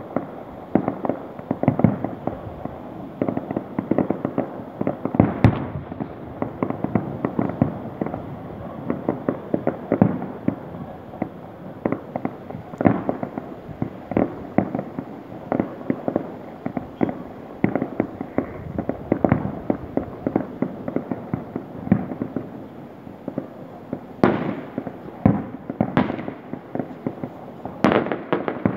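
Fireworks going off in a dense, continual crackle of many bangs and pops overlapping, with a few sharper bangs near the end.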